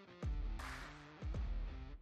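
Background electronic music with a steady beat, deep booming bass-drum hits and held synth notes.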